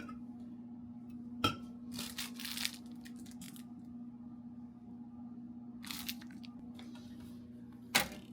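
Handling noises: a sharp click, then about a second of tearing or rustling like packaging being opened, another short rustle, and a louder click near the end. A steady low electrical hum runs underneath.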